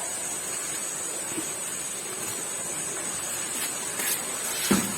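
Steady hiss, with a few light clicks late on and a sharper knock near the end.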